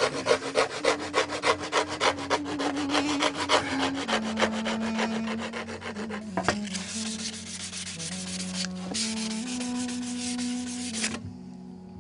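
Hand file rasping along the edge of a copper plate in quick regular strokes, about four a second, bevelling the sharp edge. About six and a half seconds in, the strokes merge into a more continuous scraping that stops about a second before the end.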